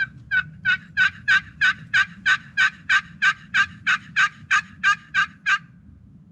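Turkey box call worked in a long series of hen yelps, about three a second, stopping near the end.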